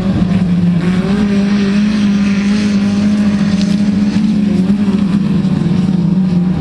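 Engines of several small hatchback autocross cars running hard at high revs as they race on a dirt track, a loud continuous engine note that holds its pitch with small wobbles.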